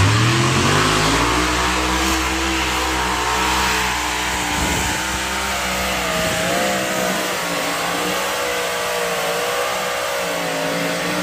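Pulling tractor's engine revving up hard as the pull starts, then running at full throttle with its pitch wavering. It stops abruptly near the end.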